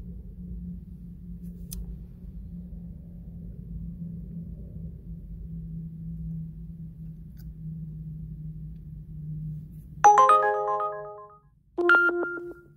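A phone ringtone sounds twice about ten seconds in. Each is a bright chime of several tones that fades within a second, and the second comes about two seconds after the first. Before it, a steady low hum fills the vehicle's cabin.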